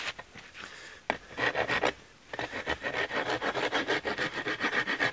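Steel file rasping across the end of a dry spruce shovel handle, rounding it to fit the shovel's sleeve. A short spell of strokes about a second in, then from about two seconds on a fast, even run of short strokes, roughly five a second.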